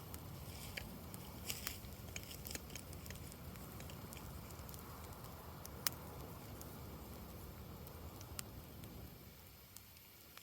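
Campfire burning: wood crackling with scattered sharp pops, the loudest about six seconds in, over a low rumble that eases off about nine seconds in.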